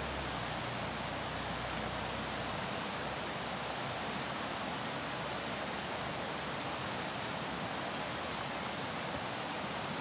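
Shallow river rushing over rocks and through rapids: a steady, even rush of water with no breaks.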